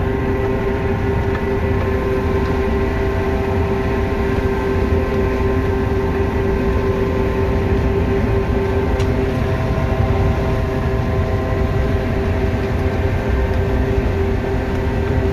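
Combine harvester running steadily while harvesting corn: a constant drone of engine and threshing machinery with a steady whine.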